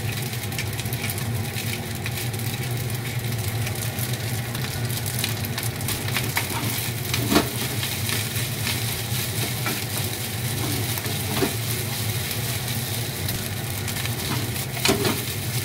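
Rice and egg frying in a nonstick pan, sizzling while a wooden spatula stirs and scrapes it, with a few sharp knocks of the spatula on the pan, the loudest about halfway through. A steady low hum runs underneath.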